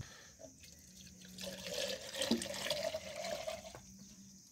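Cooking oil pouring in a thick stream from a large tin into a smaller tin can. It starts about a second and a half in, its pitch rises slightly as the can fills, and it stops shortly before the end.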